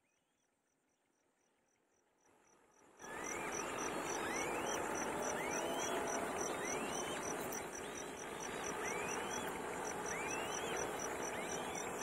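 Insect-like chirping in a fast even pulse, about four a second, with a rising whistled bird call about once a second, over a steady rushing noise. It all comes in suddenly about three seconds in, after near silence.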